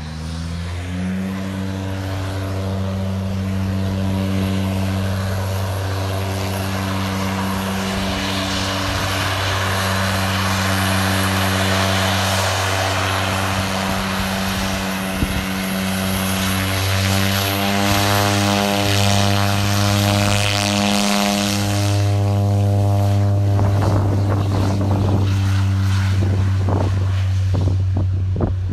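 Twin turboprop engines of an OV-10 Bronco running on the ground: a steady low propeller hum with a hissing turbine whine over it. About 22 seconds in the hiss fades while the hum carries on.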